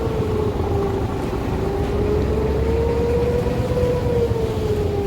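Motor boat's engine running steadily, with a droning whine that drifts slowly up and down in pitch over a low rumble.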